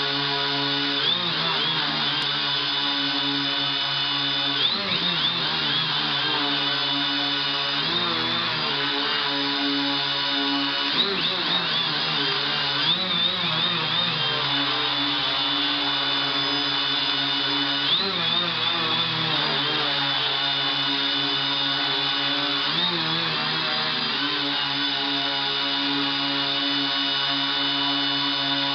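A quadcopter's electric motors and propellers running with a steady buzzing whine. Every few seconds their pitch briefly surges and dips as the controller corrects the balance. The vibration in the sound comes from too much D (derivative) gain in the PID tuning.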